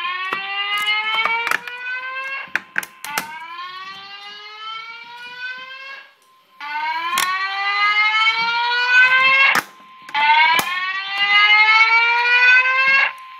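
Fire alarm voice-evacuation speaker sounding a whoop tone: four rising sweeps, each about three seconds long with a short gap between them, with a few sharp clicks in between. This is the evacuation tone that comes before the recorded voice message.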